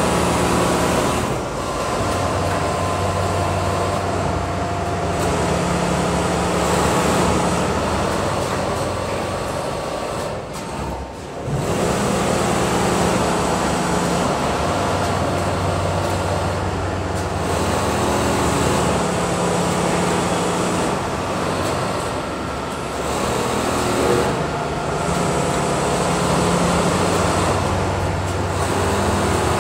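Richpeace automatic sewing machines running on a factory floor: a dense, steady mechanical hum whose low tones come and go every few seconds as machines start and stop, with a short lull about ten seconds in.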